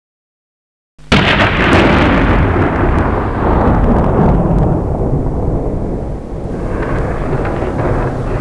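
Explosion sound effect: after silence, a sudden loud blast about a second in, then a long heavy rumble that slowly grows duller.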